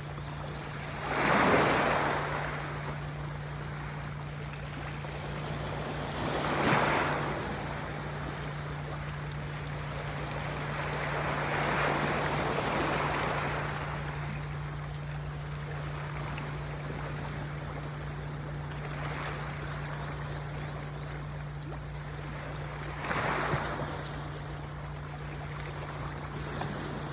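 Ocean waves breaking in swells of surf a few seconds apart. The loudest come about a second in and near seven seconds, a longer, gentler one around twelve seconds, and another near twenty-three seconds, over a continuous wash and a steady low hum.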